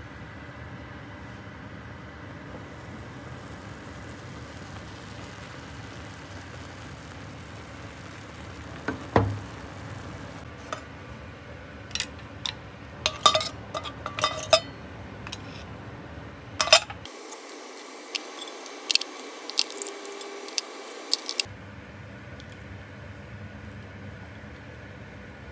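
Metal tongs clinking against a cast-iron mini Dutch oven and mussel shells as steamed mussels are lifted out: one heavy knock, then a run of sharp clinks and clicks over several seconds. A steady low hiss lies underneath.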